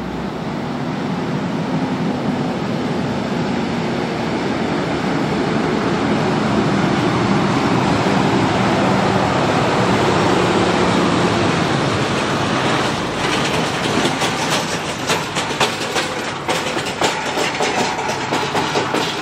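Heavy diesel hi-rail truck towing an empty flatbed trailer goes by, its engine and tyres growing louder toward the middle. From about two-thirds of the way in, a quick, irregular clatter of knocks and rattles takes over as the empty trailer bangs across the railroad crossing.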